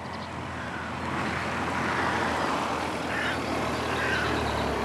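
Audi saloon driving slowly up a lane toward the listener, its engine and tyre noise growing steadily louder as it approaches.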